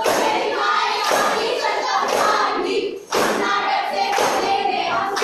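A chorus of students' voices chanting together in unison, with hand claps; the line breaks off about three seconds in and starts again at once.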